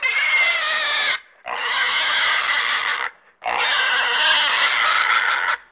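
Horse neighing: three loud, harsh, high calls with a wavering pitch, each about one to two seconds long, separated by short gaps; the last call is the longest.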